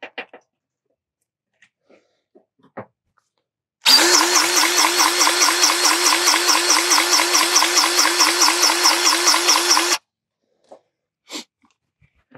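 Cordless grease gun's motor running for about six seconds, from about four seconds in, pumping grease into a mower deck spindle's grease fitting. The pump pulses evenly, about five strokes a second, and stops abruptly when the trigger is released.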